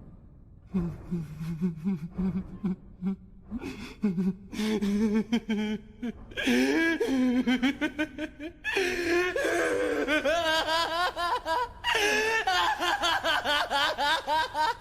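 Human laughter: a low-pitched, pulsing laugh at first, then from about six seconds in a louder, higher-pitched laugh in long wavering runs with brief pauses for breath.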